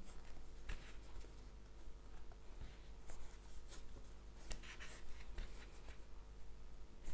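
Crochet hook working t-shirt yarn through stitches: faint, irregular scratchy rustles of yarn drawn through and rubbing against the hook.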